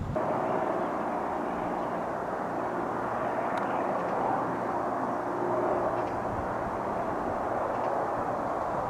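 Drax biomass freight train's diesel locomotive running as it approaches: a steady engine drone with faint steady tones under a haze of running noise.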